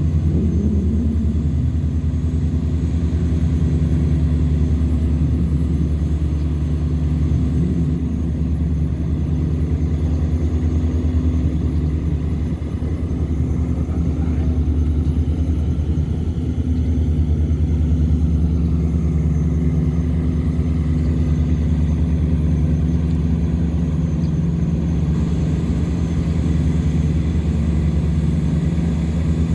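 River tugboat's engine running steadily under load, a low even drone while it tows a string of cargo barges upstream against the current.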